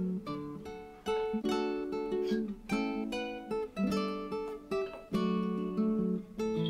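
Background music: acoustic guitar playing plucked and strummed chords, a new chord struck about once a second.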